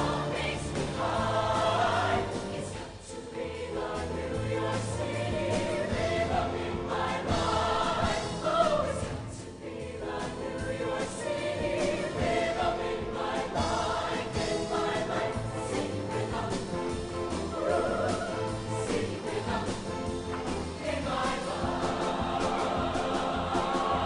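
Mixed show choir of male and female voices singing an up-tempo number over instrumental accompaniment with a steady bass line.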